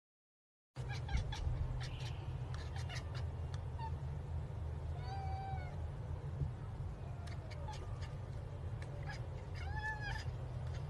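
Domestic cat meowing twice, short rising-and-falling calls about five seconds in and near the end. Under the calls are a steady low hum and scattered clicks, all starting after a brief moment of silence.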